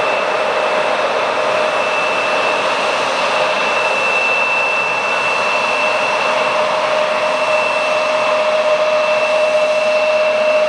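Embraer 175 airliner's turbofan engines running at taxi thrust as the jet rolls past: a steady rushing noise with a high whine and a lower hum, each held on one pitch, growing a little louder toward the end.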